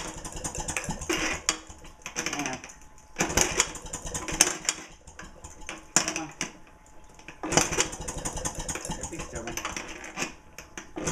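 1928 Maytag 92 single-cylinder two-stroke engine being kick-started again and again. Each kick sets off a short burst of rapid clattering from the spinning engine that dies away, and it does not settle into running.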